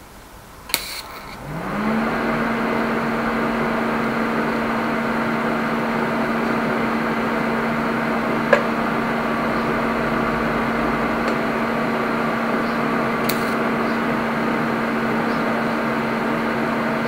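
TIG welding arc striking on a drive shaft joint, with a click about a second in, then a steady electric buzz and hum that rises briefly in pitch before holding steady, with one more short click midway.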